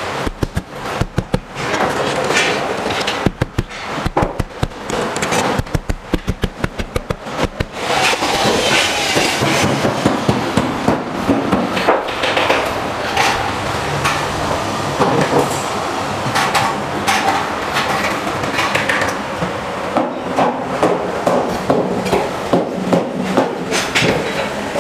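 Hammer blows in quick succession, about three or four a second, for the first several seconds. Then a continuous clattering din follows, with repeated knocks running through it.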